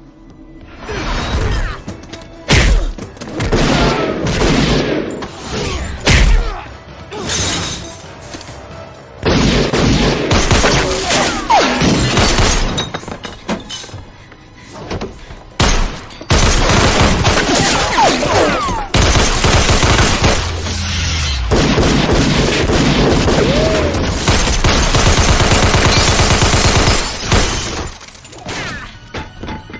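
Action-movie soundtrack: music mixed with loud hits, booms and crashes. There are several sharp hits in the first few seconds, then long dense stretches of loud noise.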